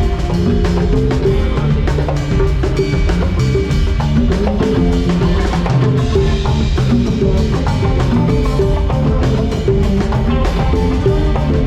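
A band playing loud music during a sound check, a drum kit keeping a steady beat of bass drum and snare under a moving bass line and other pitched instruments.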